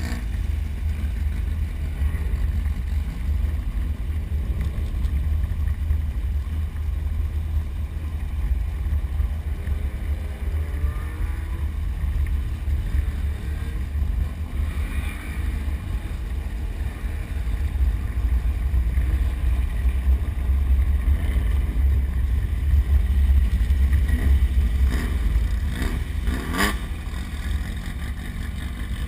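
Inside the cab of a Ford Explorer prerunner driving off-road: a steady, heavy low rumble of engine, drivetrain and rough ground. Near the end there are two short rising sounds.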